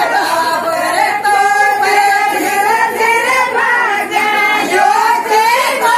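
Women's voices singing a Rajasthani folk song together, the melody held in long, wavering lines.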